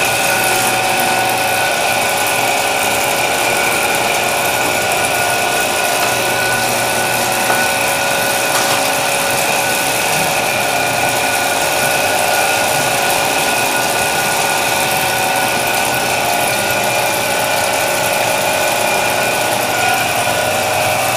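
Belt-driven dough sheeter running steadily, its motor and rollers giving a constant hum with several held tones.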